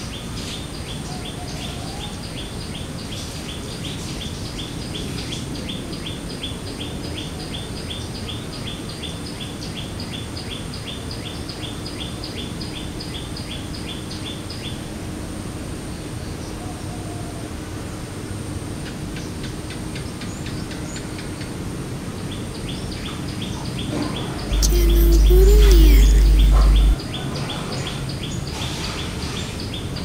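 A small bird calling in a rapid, even series of short high chirps, about four a second, which stops about halfway through and starts again later. Near the end a loud low rumble lasts about two seconds.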